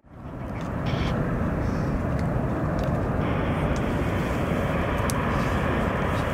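Jet engines of a heavy cargo airliner running at high power, a steady deep roar-like noise that gains a brighter, hissier edge a little past three seconds in.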